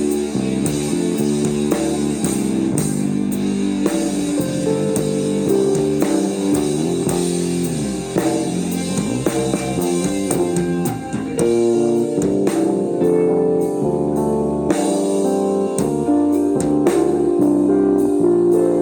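Psychedelic rock band playing an instrumental passage live: guitar lines over a drum kit, with sustained chords and steady drum hits and no singing.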